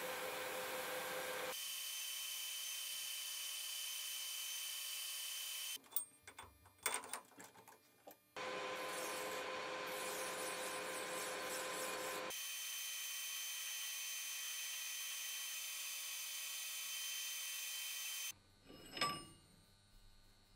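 Metal lathe running steadily with a few steady whining tones as a steel shaft turns against abrasive cloth and then a flat file. The running sound breaks off abruptly several times, with scattered clicks and knocks in one gap, and stops near the end, followed by a single knock.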